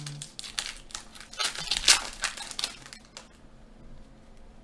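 Foil wrapper of an Upper Deck hockey card pack crinkling as it is torn and pulled open by hand. It is loudest about halfway through and dies down after about three seconds.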